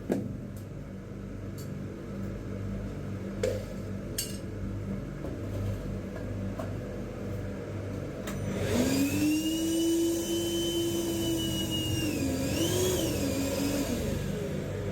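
Ryobi cordless shop vac running steadily as it sucks water out of a toilet bowl. About eight seconds in, a whistling tone rises and holds, then wavers near the end as the nozzle draws water and air.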